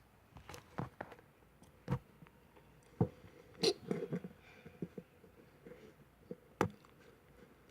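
Glue-and-borax slime being mixed in a container: irregular wet squishes and sharp clicks, several of them a second or so apart.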